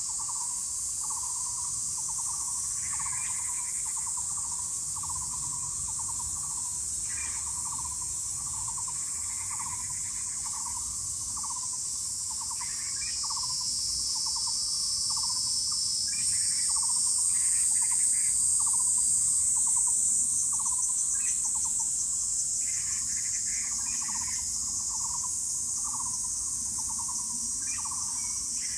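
An animal repeats a short call a little more than once a second over a steady, high-pitched insect buzz, with other brief chirping calls now and then.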